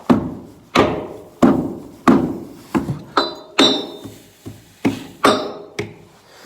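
Repeated blows, about ten in a row at roughly one every two-thirds of a second, knocking frozen manure and silage off a New Holland L230 skid steer's wheel hub. A few blows ring sharply on metal.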